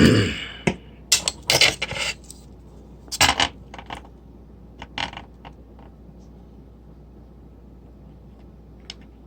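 Leatherman Rebar multitool being handled: sharp metal clicks and short scrapes as its folding tools are moved, mostly in the first five seconds, then a single click near the end.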